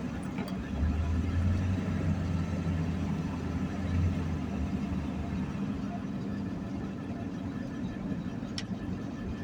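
Engine and road noise heard inside a moving vehicle's cab: a steady low drone, a little louder in the first few seconds and easing slightly after about five seconds.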